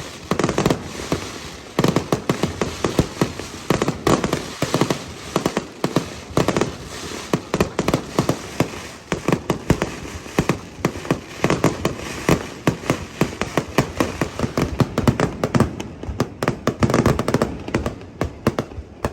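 Fireworks display: a dense, continuous barrage of sharp bangs and crackles, many a second, with no let-up.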